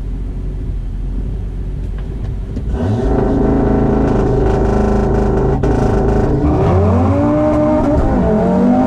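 Audi RS3's turbocharged five-cylinder engine, heard from inside the car: a low idle, then about three seconds in the revs jump and are held steady at the line. Near seven seconds in it launches, the revs climbing hard, dropping sharply at the shift into second and climbing again.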